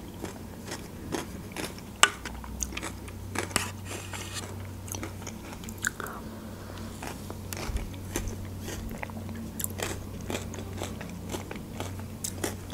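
Close-up eating sounds: a spoon scraping the plastic yogurt cup and a mouth chewing yogurt with crunchy balls mixed in, in irregular small clicks and crunches. A low steady hum runs underneath.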